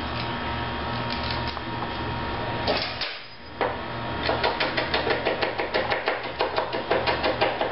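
Chef's knife chopping fresh parsley on a cutting board: quick, even strokes of the blade knocking on the board, several a second, starting about halfway through.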